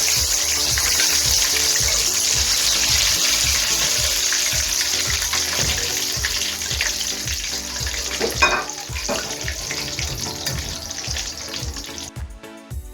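Chicken wings deep-frying in hot oil: a steady dense sizzle that thins out and dies away over the last few seconds, with a few light knocks partway through.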